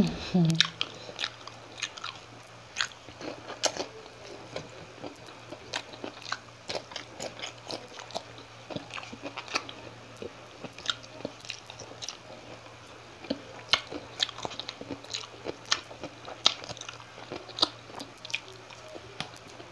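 Close-miked chewing of bangus (milkfish): many small wet mouth clicks and light crunches, scattered irregularly. A brief low hum from the eater right at the start is the loudest sound.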